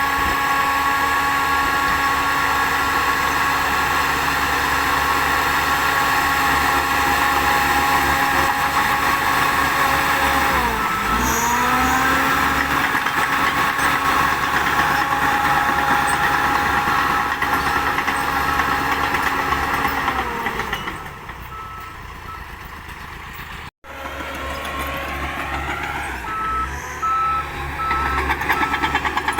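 Shantui DH10B2 crawler bulldozer's diesel engine running hard while it works. About eleven seconds in, the engine pitch sags and then climbs back, and it eases off for a couple of seconds past the twenty-second mark. A reversing alarm beeps at an even pace near the end.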